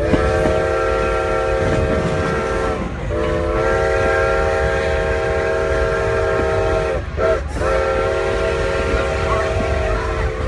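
Steam locomotive's chime whistle sounding several notes together in a long, long, short, long pattern, the standard grade-crossing signal, over the low rumble of the moving train.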